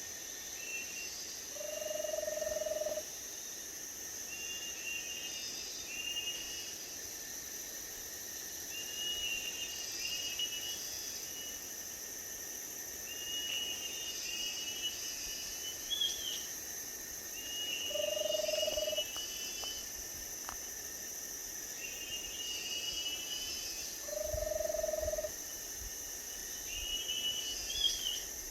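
Forest bird calling, repeating a short phrase of quick high notes about every four seconds. A low, steady whistled note of about a second sounds three times, over a constant high insect drone.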